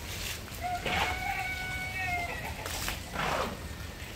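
A rooster crowing once, ending in a long held note, over the steady hiss of heavy rain, with a few short noisy bursts.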